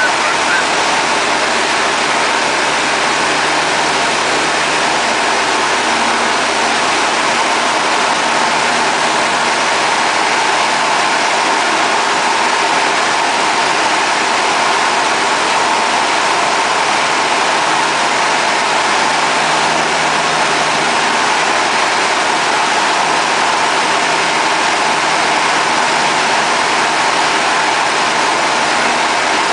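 Light aircraft's engine and propeller running steadily in flight, heard from inside the cabin as a constant drone mixed with wind noise.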